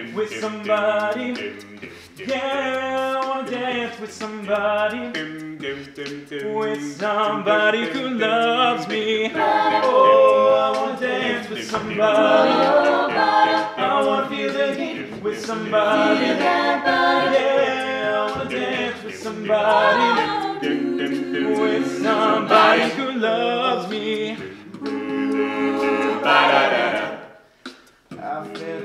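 Mixed-voice a cappella group singing in harmony, several voice parts at once over a low bass part. The singing breaks off briefly near the end.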